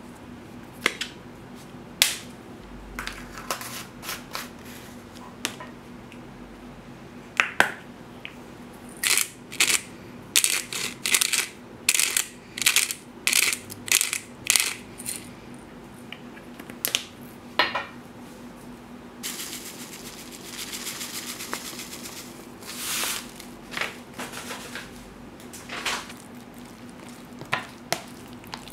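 Kitchen handling sounds of spoons and spice containers: scattered clinks and taps, a quick run of sharp taps in the middle, then a few seconds of scraping or rustling, over a faint steady hum.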